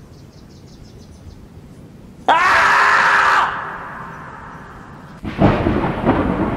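A loud scream from the screaming-marmot meme, starting a little over two seconds in and held for about a second, rising in pitch at the start. About five seconds in, a loud thunderclap sound effect crashes in and rumbles on.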